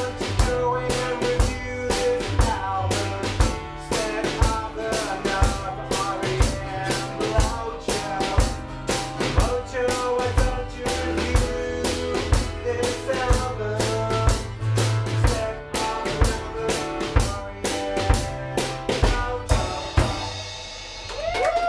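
A Liberty drum kit with Istanbul Mehmet cymbals, heard close up, drives a steady rock beat of kick, snare and cymbal hits under a guitar in a short live band song. The song stops about twenty seconds in.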